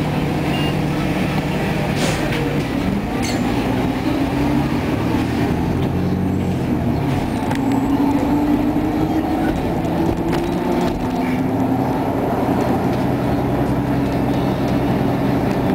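Interior drone of a 2012 Nova Bus LFS under way: its Cummins ISL9 diesel engine and ZF EcoLife automatic transmission pull the bus along, with a whine that climbs steadily in pitch and drops back twice as the transmission shifts up.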